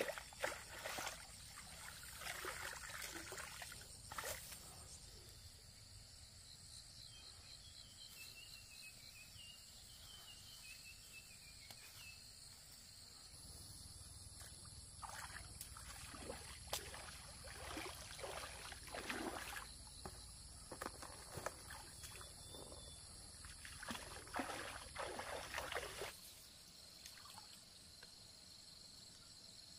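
Water splashing and sloshing in irregular spells, over a steady high shrill of insects, with a short chirping call about eight to twelve seconds in; the splashing stops near the end.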